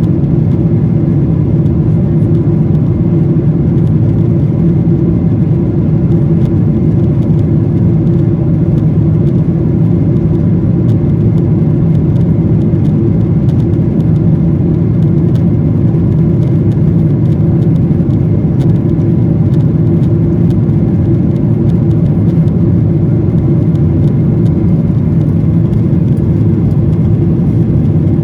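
Steady, loud airliner cabin drone of engine and airflow noise, low and even, with no change in pitch or level.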